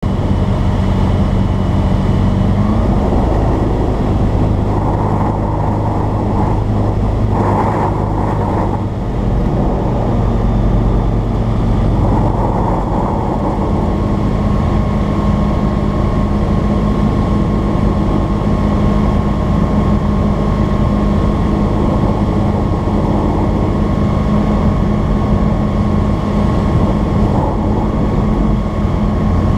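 Tumaco MXP-140 light aircraft's engine running steadily, with wind and airflow noise; its pitch shifts a couple of times as the power changes during the landing.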